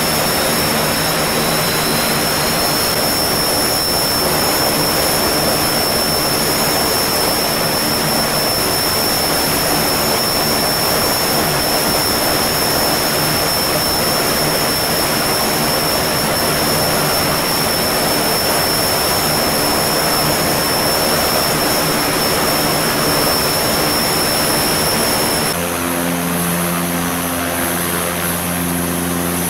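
Antonov An-26's two Ivchenko AI-24 turboprop engines running on the ground with propellers turning: a loud steady engine noise with a high turbine whine over it. About 25 seconds in, the sound changes and a deeper, evenly pitched propeller drone comes forward while the whine drops away.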